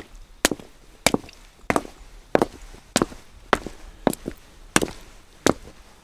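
Footsteps walking at a steady pace on wet cobblestones, about three steps every two seconds, each a sharp hard-soled strike.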